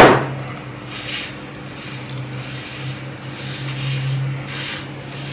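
Soft rubbing and scraping sounds, a few faint swishes about a second apart, over a steady low hum, with a loud knock right at the start.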